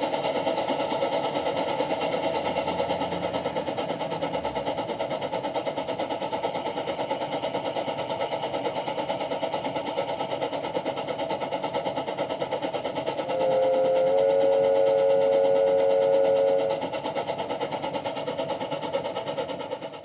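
MyLocoSound Premium steam sound card in a large-scale model steam locomotive, playing a rapid steady chuff through the loco's speaker as its wheels turn on rollers. About two-thirds of the way in, a chime whistle of several notes blows together over the chuffing for about three and a half seconds, rising slightly into its full note after the first second.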